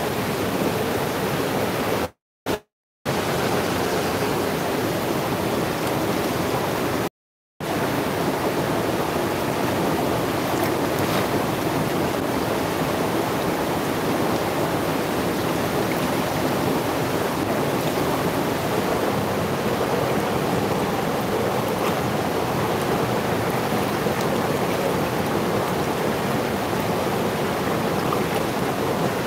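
Fast mountain river rapids rushing over rocks: a steady, full whitewater rush. The sound cuts out to silence for a moment twice in the first several seconds.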